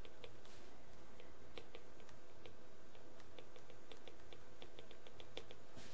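Faint clicks and taps of a stylus tip on a tablet screen during handwriting, coming in quick irregular runs that grow denser in the second half.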